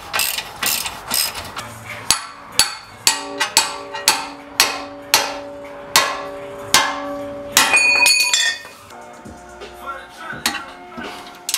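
A hand hammer strikes steel on a car's front steering and suspension parts, about two blows a second, a dozen or so in all, each with a metallic ring. The work is freeing an outer tie rod end. After about eight seconds the blows stop and only lighter taps follow.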